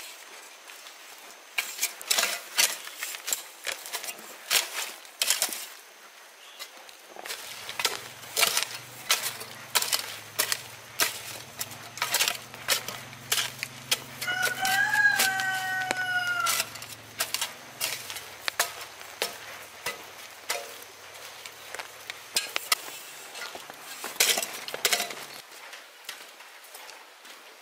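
A rooster crows once, one long call about halfway through, over a run of sharp, irregular knocks.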